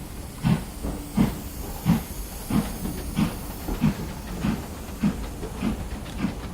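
Model steam locomotive's sound effects chuffing at a steady pace, about one and a half chuffs a second, over a continuous hiss.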